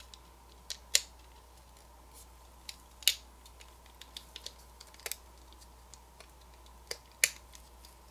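Small irregular clicks and taps of a Ledger Nano X hardware wallet's casing parts as the top cover is handled and fitted onto the housing, a few seconds apart, the loudest about three seconds in.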